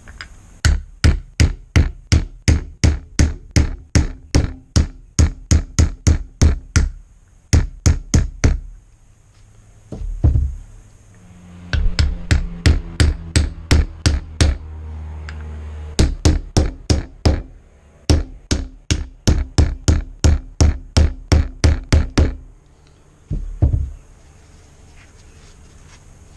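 Claw hammer knocking on a wooden block to drive the pistons into the bores of a 1967 MGB front brake caliper. Runs of quick knocks, about three a second, broken by short pauses, with a last short burst near the end.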